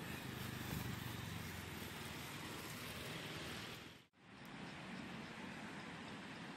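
Road traffic going by outdoors: a steady rush of passing cars, a little louder about a second in. The sound cuts out for an instant about four seconds in and comes back.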